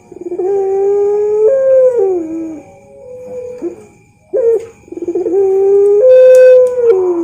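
Puter pelung dove, a collared-dove breed kept for its long coo, cooing twice. Each coo opens with a short note, holds a long level note, then steps up and slides down in pitch.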